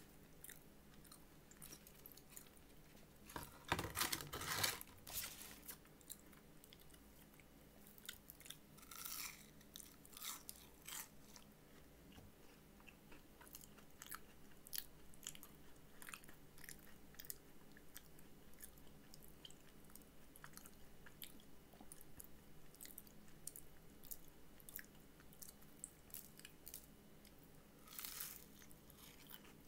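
Faint crunching bites and chewing of a crispy apple pie pastry, with a louder cluster of crunches about four seconds in and again near the end.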